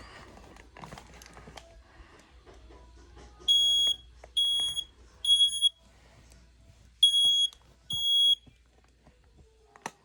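Smoke detector sounding its high-pitched alarm on test: three loud beeps of about half a second each, a pause, then two more beeps, after a few seconds of faint clicks and handling.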